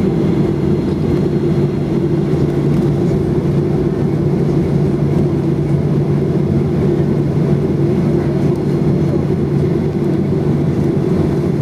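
Cabin noise of a Boeing 737-800's CFM56-7B turbofan engines at taxi power, a steady low drone heard from a window seat over the wing. A faint high whine fades out a couple of seconds in.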